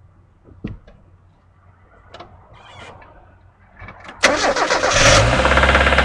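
A few faint clicks, then about four seconds in a 1995 Mazda MX-5 Miata's four-cylinder engine fires up suddenly, flares briefly and settles into a loud, rough run. The owner hears it knocking and suspects a bad bearing after an over-rev.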